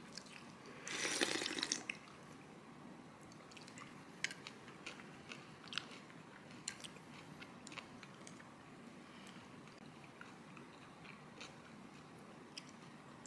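A person slurping a mouthful of soba noodles for about a second, then chewing, with scattered small sharp clicks and crunches of eating.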